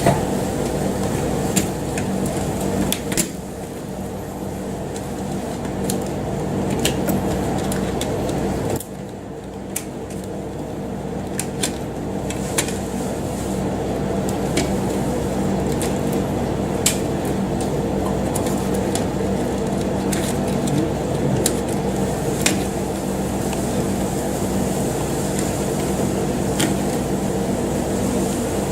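A machine running with a steady, pitched hum, with scattered sharp clicks and knocks over it.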